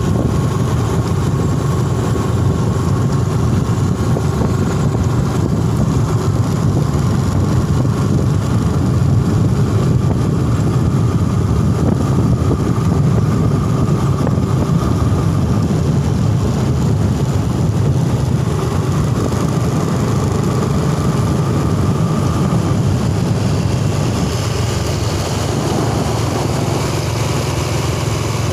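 Motor scooters riding along a road, heard from one of them: steady engine and road noise with no break.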